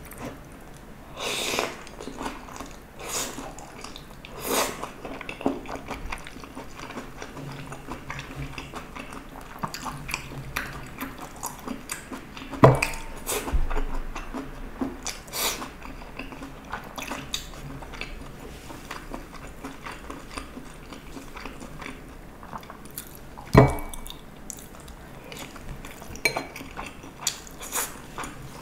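Close-miked eating of stir-fried cheese-vegetable gopchang: chewing and mouth sounds mixed with chopsticks clicking against the plastic food containers. Two sharper, ringing clacks of a utensil on a dish stand out, one a little before halfway and one later on.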